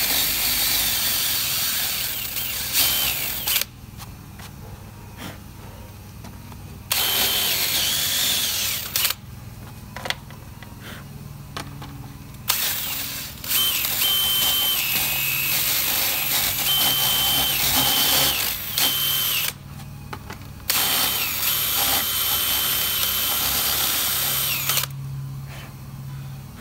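DeWalt cordless drill boring out holes, running at full speed in four runs of a few seconds each with short pauses between them. It is deepening and enlarging the holes to take larger pins.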